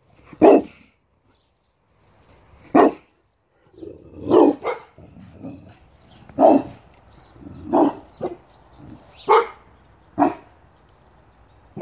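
Boerboel dog barking in single loud barks, about nine in all, one every second or two, some in quick pairs.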